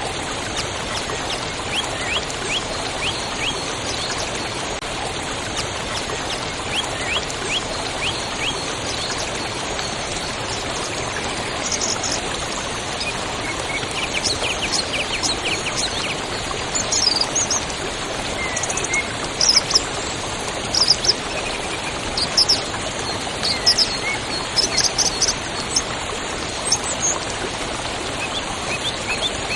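A river flowing steadily with birds chirping over it: runs of quick thin chirps, and higher twittering calls that come more often in the second half.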